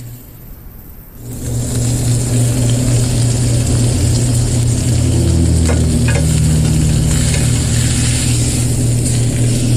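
Ribeye steak sizzling in a hot cast-iron grill pan over a gas burner, an even hiss over a steady low hum. A few short clicks of metal tongs on the pan come a little past the middle.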